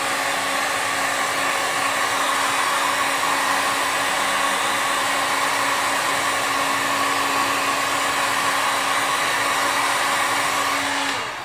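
Handheld electric heat gun blowing steadily, a constant rushing airflow with a faint motor hum, used here to soften EVA foam. It switches off near the end and the sound falls away.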